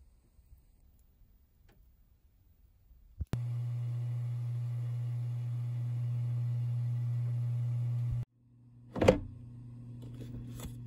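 Steady low electrical hum from a running kitchen appliance. It starts with a click about three seconds in and cuts off after about five seconds. A sharp knock comes shortly after, and the hum returns more quietly.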